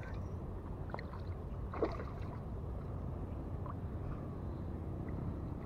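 Steady low rumble of wind on the microphone, with a few faint short squeaks or clicks about a second and two seconds in.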